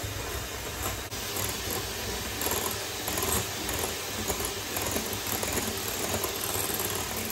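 Zephir electric hand mixer running steadily, its beaters whisking eggs and sugar in a glass bowl until the sugar dissolves.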